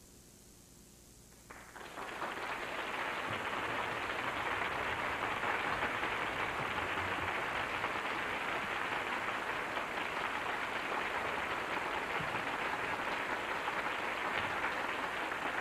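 Audience applauding after a hush, breaking out suddenly about a second and a half in, swelling within a second and then holding steady.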